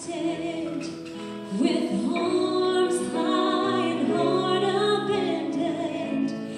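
Slow gospel worship song: a woman singing long held notes with a slight vibrato, accompanied by keyboard and guitar.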